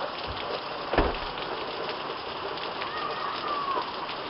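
Heavy downpour: a steady hiss of rain with a dense patter of drops hitting surfaces. A single sharp knock comes about a second in.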